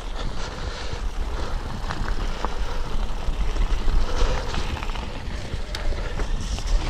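Wind buffeting the microphone of a bike-mounted camera riding fast down a dirt forest track, with tyres rolling over the gravel and a few rattling clicks from the bike.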